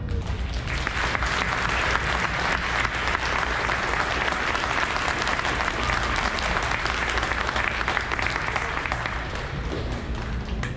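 Audience applauding. The clapping builds up in the first second and eases off near the end.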